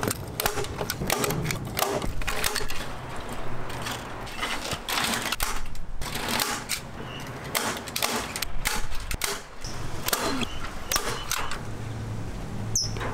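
Staple gun driving staples through chicken wire into a wooden frame: a series of sharp, irregularly spaced clacks.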